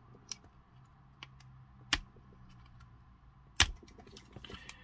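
Sharp plastic clicks from fingers and fingernails working at a ribbon-cable connector on a security camera's small circuit-board module. There are a few separate clicks, the loudest about three and a half seconds in, then a run of small ticks near the end.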